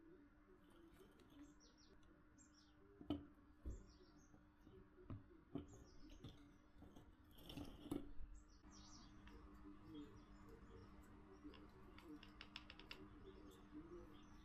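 Near silence: faint high chirps, a few light knocks and a low steady hum, with a quick run of ticks about twelve seconds in.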